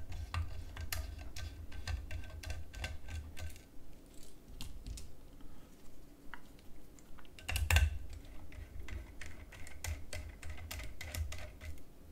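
Small screwdriver undoing Phillips screws in the base of a Blue Yeti microphone: irregular light clicks and rattles, with bumps from the microphone body being handled. One sharper knock comes a little under two-thirds of the way through.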